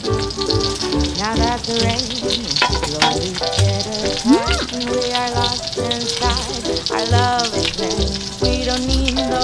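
Meat sizzling steadily in a frying pan, under background music with held melodic notes, and a few light clicks of utensils.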